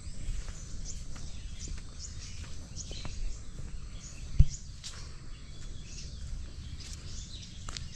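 Several birds chirping in short, scattered calls over a low steady rumble, with a single dull thump about four and a half seconds in.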